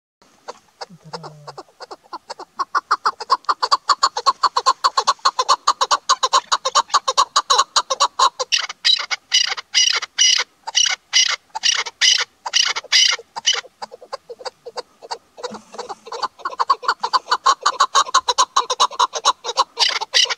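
Chukar partridge calling: a long run of rapid, repeated short notes, several a second, that builds in loudness over the first few seconds, breaks off briefly about fourteen seconds in, then starts again.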